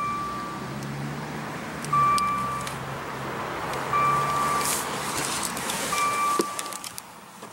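A Maserati Ghibli's warning chime with the driver's door standing open: a single steady beep about every two seconds, four times.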